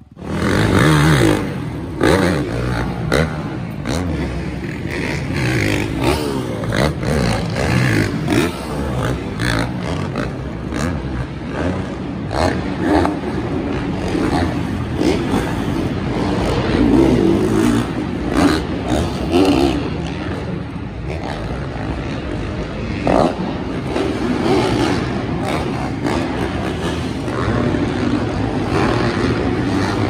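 Several supercross dirt bikes riding the track together, a steady, loud blend of engines rising and falling in pitch as the riders throttle on and off.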